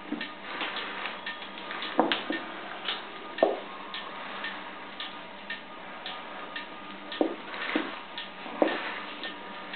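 Irregular clicks, creaks and rubbing of shiny PVC gloves and clothing against a latex head mask as the mask is pulled off, with several louder knocks among them.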